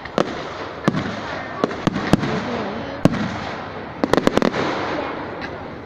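Fireworks going off: a series of sharp bangs over a steady rushing background, with a quick cluster of bangs about four seconds in.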